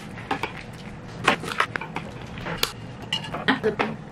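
Metal spoons and forks clinking and scraping as two people eat off a plastic-covered table: a string of irregular sharp clicks, a few a second, some with a short ring.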